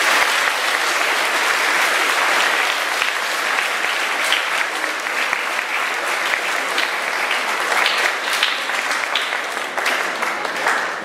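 Audience applauding, a dense, steady clapping that thins out slightly near the end.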